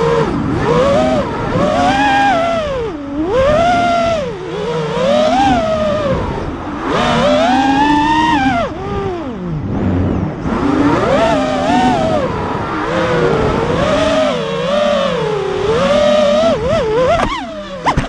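FPV freestyle quadcopter's brushless motors and propellers whining, the pitch sweeping up and down constantly with the throttle through flips and dives.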